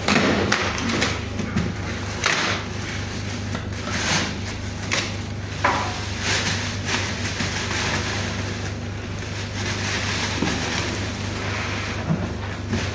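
Printer packaging being handled and opened: irregular rustling, scraping and short knocks of cardboard and plastic over a steady low hum.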